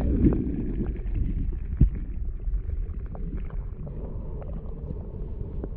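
Lithium-polymer battery cells fizzing in a bucket of plain water as they react with it: many small ticks and pops from tiny bubbles over a steady low rumble. The water is still churning from the plunge during the first second or so.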